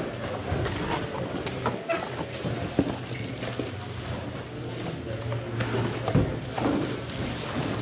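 Background murmur of voices over a steady low hum, with a few short knocks.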